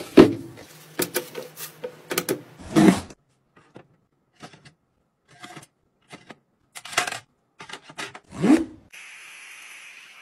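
Plastic bin handled with a few sharp knocks, then kitchen knives slid in and out of the slots of a plastic knife holder, a string of short scrapes. A steady hiss starts near the end, from a handheld steam iron.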